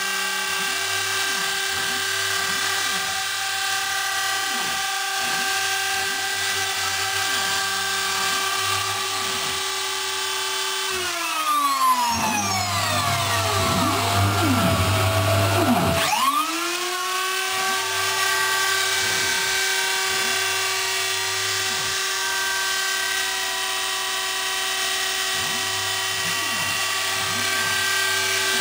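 The CNC router's spindle motor is running with a steady high whine. About 11 seconds in its pitch falls away over several seconds, then climbs quickly back to the same steady pitch.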